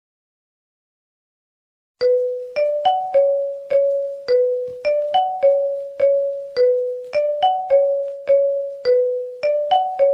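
Silence for about two seconds, then a ringtone melody starts: bell-like mallet notes in the manner of a marimba, about two a second, each struck and dying away, stepping up and down over a short phrase that repeats.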